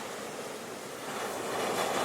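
Ocean waves on a shore: the wash of surf ebbs to a low point about a second in, then swells as the next wave builds.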